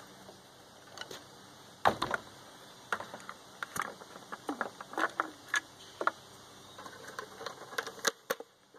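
Irregular clicks and knocks of metal parts as a chainsaw clamped in a Granberg Alaska chainsaw mill is handled and adjusted by hand, the loudest knock about two seconds in; the saw is not running.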